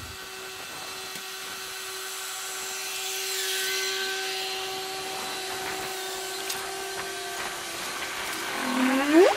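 Bobcat compact track loader's diesel engine running, with a steady hum and whine, and a rising whine near the end.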